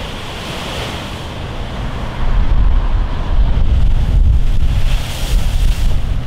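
Storm surf breaking against a concrete seawall: a continuous hissing wash of waves, getting louder about two seconds in as a big wave hits the wall, with heavy wind buffeting the microphone.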